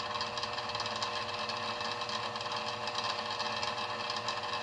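A small electric motor running steadily with an even hum.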